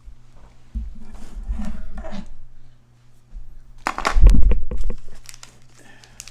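Bumps, knocks and rustling close to the microphone, with a louder burst of clattering knocks about four seconds in.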